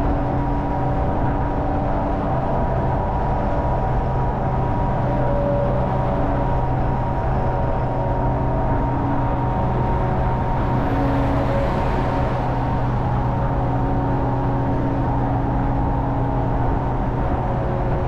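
Hummer H1 cruising at freeway speed with the top down, heard from the cab: a steady engine and drivetrain drone mixed with road and wind noise. A swell of rushing noise rises and fades around eleven to twelve seconds in.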